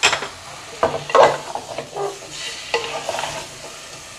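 Wooden slotted spoon stirring chunks of potato, tomato and onion paste in an aluminium pot, with about half a dozen irregular scrapes and knocks against the pot, over the sizzle of the vegetables frying in oil.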